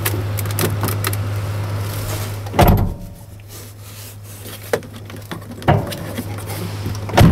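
A truck cab door pulled shut with a loud thud about two and a half seconds in, after which the outside noise drops away. A few lighter knocks follow as a hand works the door's inner panel and pull handle, over a steady low hum.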